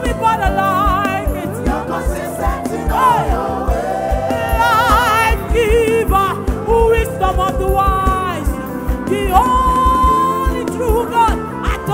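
Live gospel praise music: a band with electric bass guitar and a steady low beat under singers holding notes with vibrato.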